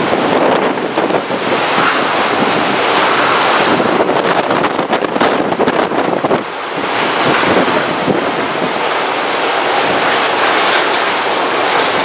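Typhoon storm wind blowing hard and buffeting the microphone, the gusts surging and easing, with a brief lull about halfway through.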